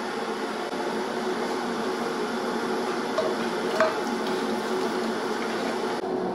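Cookware being handled: fried carrot strips are tipped and scraped with a spatula from a frying pan into a pot, with two metal clanks a little past three seconds in and near four seconds, over a steady hum.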